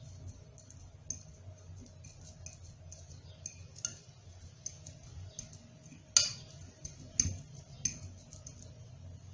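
Kitchen utensil clinking and scraping against a bowl while mashing steamed garlic cloves: light irregular ticks throughout, with three sharper clinks in the second half, the first the loudest.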